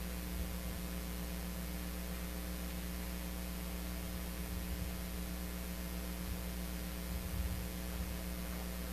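Steady electrical mains hum with an even layer of hiss, the room tone of the audio feed during a silent pause.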